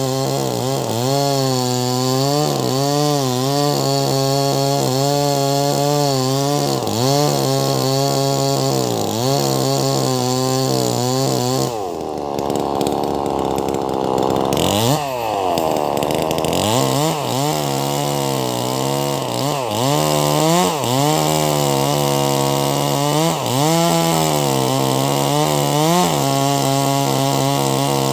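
Wagner 580 two-stroke chainsaw with a 24-inch bar ripping a large log lengthwise, its engine pitch repeatedly dipping under load and recovering. About halfway through the pitch sags low for a few seconds, then revs up sharply and settles back into the cut.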